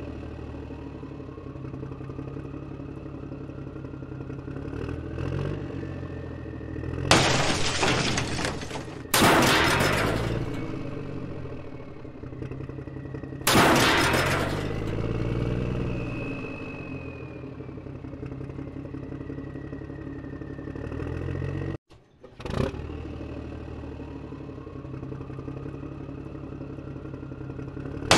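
Cartoon sound effects of a toy vehicle's engine running, with a slowly rising whine over it. Three loud crash-and-shatter smashes come about seven, nine and thirteen seconds in as the toy excavator breaks into pieces.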